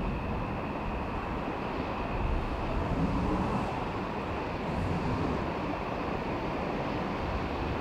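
V/Line N class diesel-electric locomotive approaching from a distance with its passenger train: a low, steady rumble with no distinct events.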